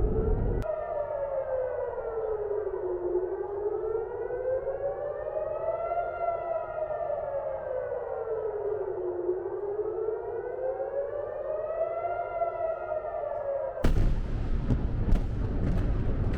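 Air raid siren wailing, its pitch rising and falling slowly about every six seconds. Near the end it cuts suddenly to loud rushing noise with several sharp cracks.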